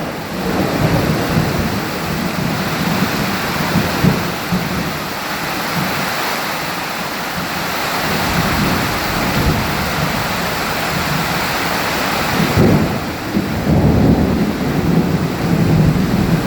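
Thunderstorm: rain falling steadily with low rolling thunder, the rumble swelling near the start and again in the last few seconds.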